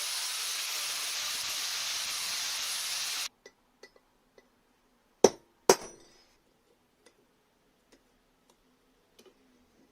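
Steady hiss of steel being ground that cuts off abruptly about a third of the way in. A few light metallic clinks follow, then two sharp hammer blows on a centre punch in steel, half a second apart, each ringing briefly.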